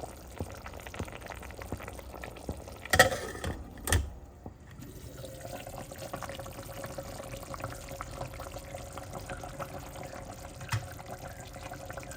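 Pot of chicken soup bubbling on the stove, a crackling fizz of liquid, with two loud knocks about three and four seconds in. A steady hum joins from about five seconds in.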